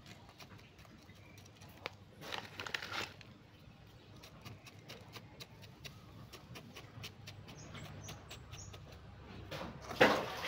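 Potting soil being pressed and poked in around a bonsai stump in a small pot: faint rustling of soil with many scattered light clicks, a brief rustle early on, and a louder scrape about ten seconds in.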